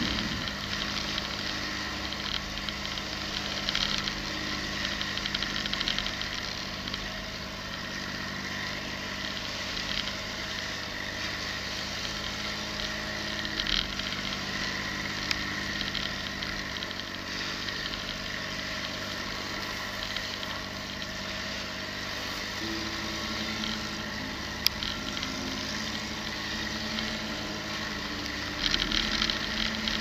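Off-road vehicle's engine running steadily at low speed as it drives along a sand beach, heard from the outside of the body, with a steady hiss over it. The engine note shifts slightly a little before halfway and again about three-quarters through, and there is a single sharp click shortly after.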